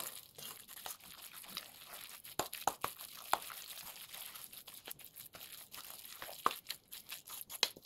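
Hand mixing and squeezing a thick batter of flour and grated Jerusalem artichoke in a stainless steel bowl: irregular soft crackles and clicks.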